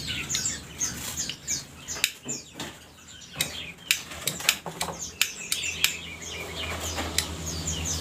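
Caged birds chirping, with a string of sharp clicks as a lighter is flicked to light a cigarette.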